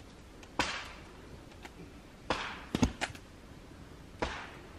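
Four hard smacking blows as someone swings with full force and strikes something, two of them in quick succession midway, each hit followed by a brief rushing fade.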